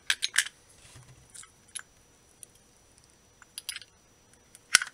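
Scattered light clicks and taps of small turntable-motor parts being handled and set down, with a sharper click near the end.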